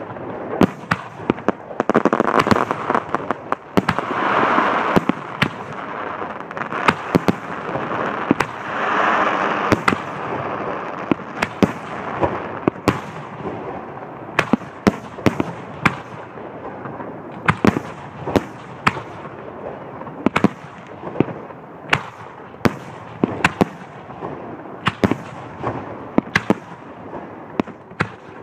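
Aerial fireworks shells bursting in a rapid, irregular barrage of sharp bangs. Denser rushes of noise swell up a few seconds in and again about nine seconds in.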